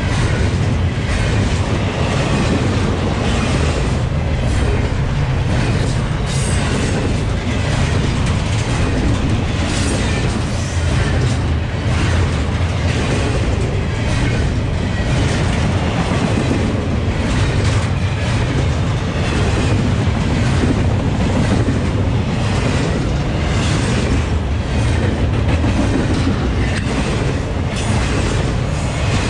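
Double-stack intermodal container train rolling past: steady noise of steel wheels on rail, with repeated clacks as the wheels go by.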